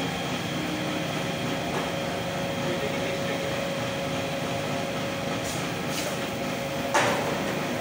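Electric band saw running unloaded, its motor giving a steady hum with a high, even whine, before any cut is made. A single sharp knock sounds about seven seconds in.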